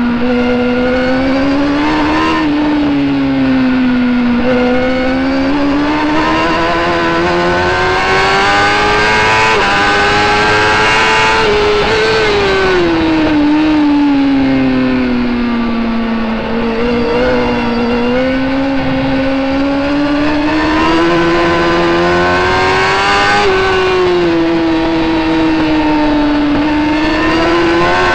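Racing superbike engine at high revs heard from a camera mounted on the bike, its pitch climbing and falling as the rider accelerates, shifts and brakes around the track, with brief dips at the gear changes.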